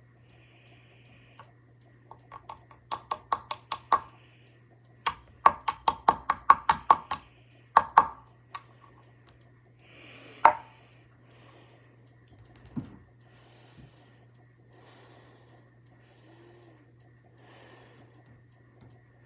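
A small bottle of makeup rattling as it is shaken by hand, in three bursts of quick clicks at about six a second, then one sharp click about ten seconds in, followed by soft handling noises.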